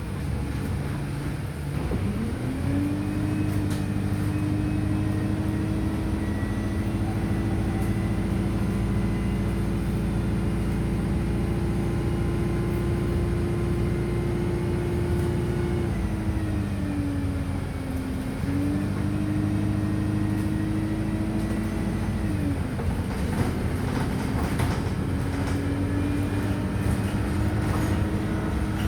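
Wright StreetLite DF single-deck bus heard from on board, its engine note climbing as it pulls away, holding steady while it cruises, then dipping and picking up again twice as it slows and accelerates. Light clicks and rattles near the end.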